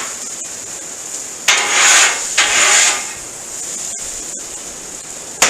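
Grilled fajita vegetables being scraped off a hot cooking surface onto a baking sheet: two harsh scraping strokes about a second and a half in, with a click at the start and another near the end, over a steady high sizzling hiss.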